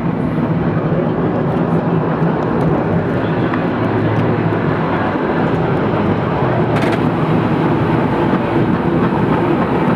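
San Francisco cable car running along the street: a steady, loud rumble of the car on its rails and cable, with one short sharp clack about seven seconds in.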